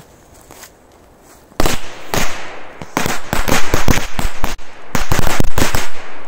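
A bundle of Korsar-1 firecrackers going off in a rapid, irregular string of sharp bangs, starting about a second and a half in and lasting about four seconds.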